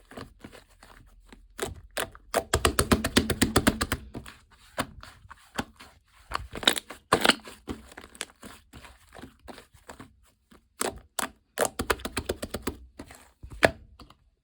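Clay-mixed slime being squished and pulled by hand, making quick runs of small wet pops and crackles with single snaps in between.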